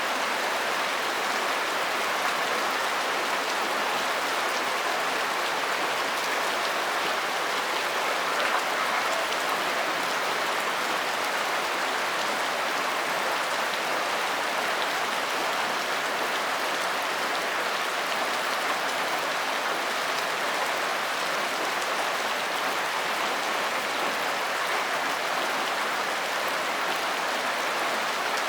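Rain falling steadily: an even, unbroken hiss of drops.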